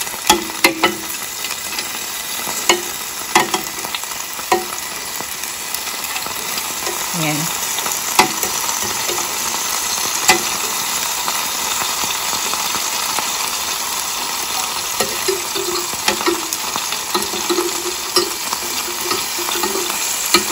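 Marinated pork skewers sizzling on the hot grate of a Ninja Foodi indoor grill. Metal tongs click and clack against the grate and pot as the skewers are turned, with sharp clicks every second or so.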